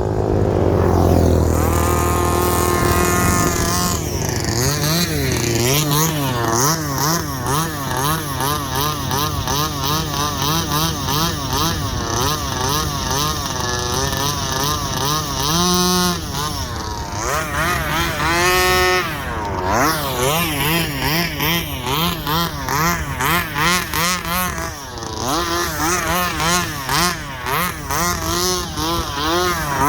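Small two-stroke gasoline engine of a Rovan Baja 32cc RC car running under constantly varying throttle as it drives, its pitch rising and falling over and over, with two sharper rev-ups past the middle.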